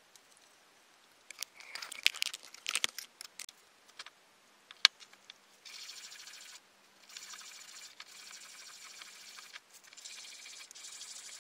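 Clicks, taps and clinks as the cut glass test tube is handled, with one sharp click about five seconds in. After that come three stretches of steady, high, hissing rasp, each one to two and a half seconds long.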